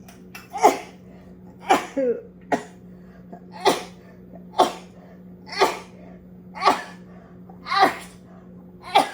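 A woman's sneezing fit: about nine sneezes in a row, roughly one a second.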